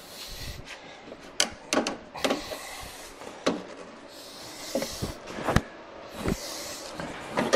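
Hands working an old plastic headlamp assembly loose by hand: irregular plastic clicks and knocks with bits of scraping and rustling between them.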